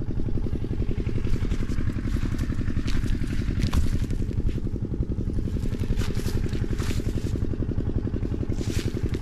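A small engine running steadily nearby, with a fast, even pulse, and now and then a light scrape or crackle over it.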